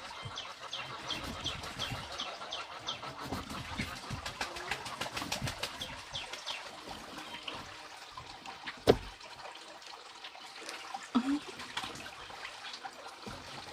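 Small birds chirping in quick repeated series, with scattered clicks and one sharp knock about nine seconds in.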